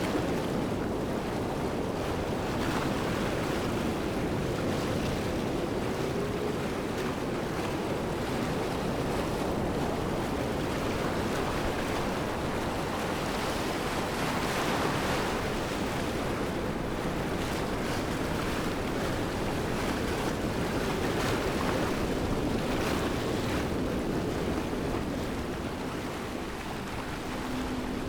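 Waterfall: steady rushing, splashing water.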